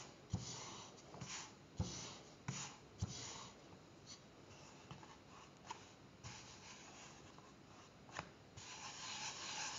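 Wooden rolling pin rolling wheat tortilla dough on a floured wooden board: soft rubbing, scraping strokes with light knocks, several in quick succession at first. Near the end comes a longer, steadier rubbing as the dough is smoothed by hand.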